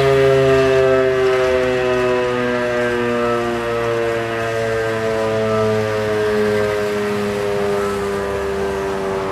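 Old German WWII electric air-raid siren, which the uploader takes for an Elektror L1, sounding the fire alarm signal on a test run: one loud, sustained multi-tone wail whose pitch sinks slowly.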